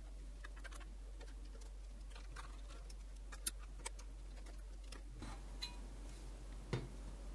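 Faint, scattered clicks and ticks of a small screwdriver working the screws out of a solar inverter's wiring cover. A duller knock near the end as the cover comes off.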